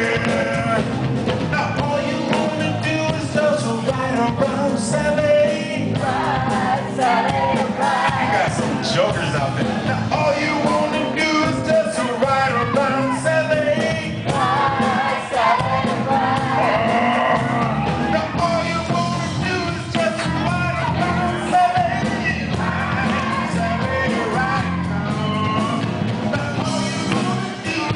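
Live band playing rock music: a singer belting into a microphone over guitar and drums.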